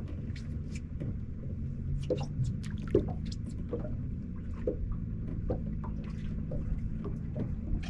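Irregular small water drips and splashes over a steady low motor hum, with the sharpest splash about three seconds in.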